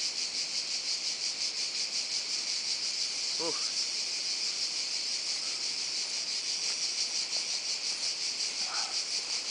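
Dense chorus of insects: a steady, high-pitched shrilling that pulses about three times a second.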